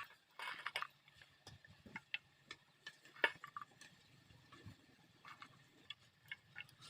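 Faint, irregular light clicks and taps of a utensil against a bowl while besan batter with turmeric and salt is mixed.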